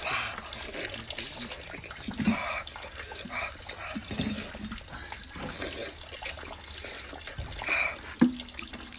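Close-up eating sounds: a person biting into and chewing chunks of saucy braised meat taken from a wok with chopsticks, in short, irregular bursts.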